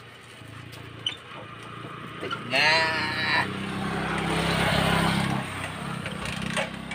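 A motorcycle engine running with a steady low note that swells a little over a second or two. Just before it, a man lets out a short loud cry.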